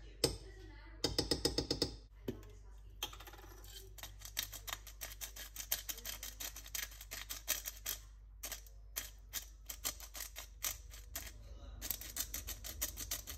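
Manual pepper grinder being twisted over a pan, a long run of rapid crunching clicks as peppercorns are ground, with brief pauses between turns. A short rattling burst comes about a second in.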